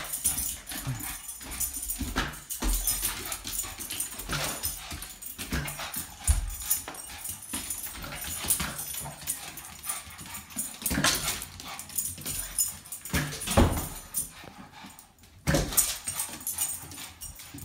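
A Boston terrier barking and whimpering excitedly as it jumps after a balloon, with many sharp knocks and thumps scattered throughout.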